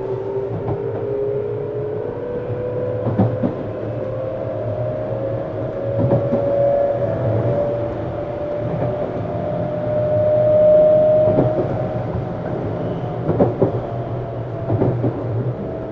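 Tokyu 7700 series electric train heard from inside a motor car while accelerating: the traction inverter and motor whine rises steadily in pitch, then switches to a new steady tone about 12 seconds in as the inverter changes modulation mode. Under it runs a steady rumble of wheels on rail, with scattered clicks of rail joints.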